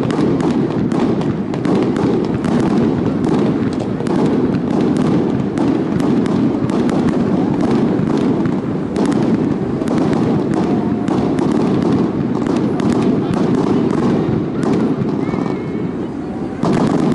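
Aerial fireworks going off overhead: a continuous run of sharp bangs and crackling pops, some in quick clusters, over a steady low rush of noise.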